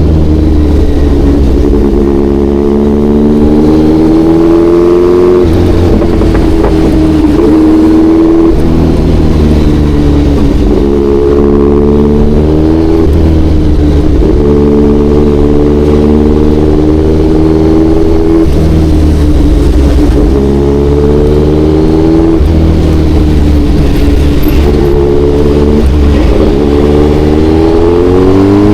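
Kawasaki Ninja 1100SX's inline-four engine pulling under way. Its pitch climbs repeatedly and drops sharply at each gear change, over a steady low rumble.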